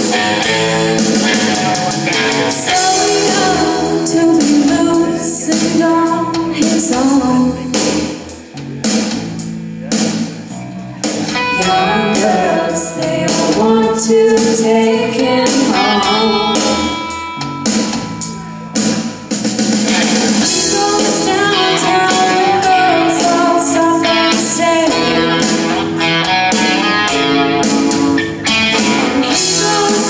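Live rock band playing through a PA: electric guitar, drum kit and vocals. The music eases off briefly twice, about eight and sixteen seconds in, then comes back to full level.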